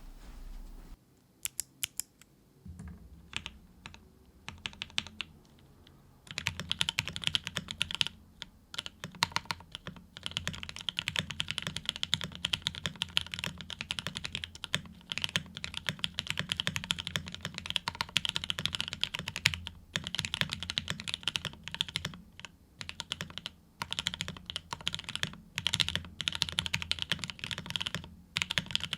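Typing on a CannonKeys Rekt1800 full-size mechanical keyboard with lubed Pinoko switches, an FR4 plate, O-ring mounting and polyfill. A few scattered keystrokes come first, then steady continuous typing from about six seconds in.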